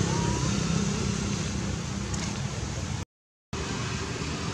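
Steady outdoor background noise, a low hum under an even hiss, broken by a sudden half-second of complete silence about three seconds in.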